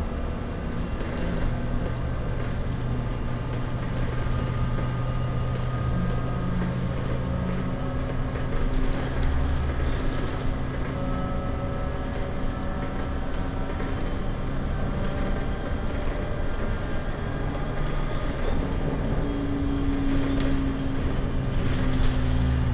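Cabin sound of a Scania battery-electric city bus on the move: a steady road and tyre rumble with the thin whine of the electric drive, its pitch shifting as the bus changes speed. A few low bumps and rattles come through about nine seconds in and again near the end.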